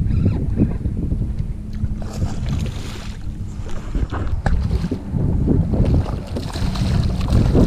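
Wind rumbling on the microphone, with water splashing as a hooked redfish thrashes at the side of the kayak.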